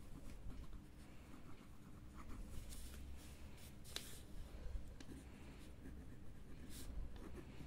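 Pen scratching faintly on lined notebook paper as words are written by hand, in short strokes, with one sharper tick about four seconds in.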